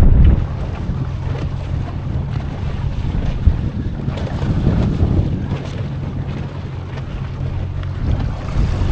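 Wind buffeting the microphone on an open boat, over a steady low hum from a motor and water lapping. The wind gusts loudest right at the start.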